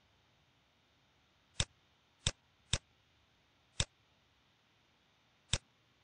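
Five sharp clicks of a computer mouse, unevenly spaced, against a quiet room.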